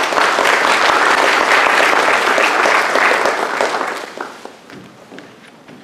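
Audience applauding, starting at full strength and dying away about four seconds in.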